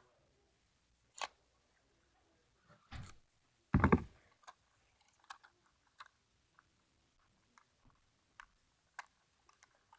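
Sticky tape and paper being handled as tape is put on a paper squishy. A few sharp crackles come through, the loudest about four seconds in, followed by scattered small ticks and crinkles.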